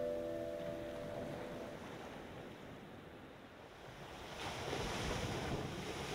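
Ocean surf washing onto the beach as a steady rushing hiss, with one wave swelling louder about four seconds in. A few held ringing tones fade out during the first two seconds.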